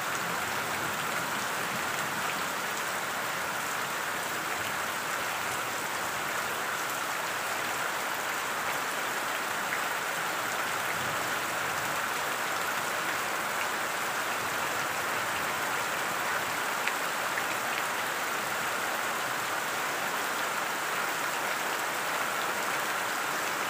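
Steady rain falling, an even, unbroken hiss of drops.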